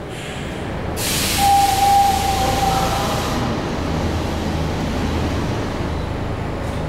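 SEPTA Broad Street Line B-IV subway car standing at the platform with a low steady hum. About a second in, a loud hiss of air starts and cuts off about two and a half seconds later. A steady high tone sounds for about a second and a half in the middle of it.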